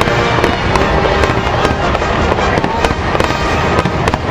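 Fireworks exploding and crackling in quick succession, many sharp cracks over a continuous rumble, with music playing underneath.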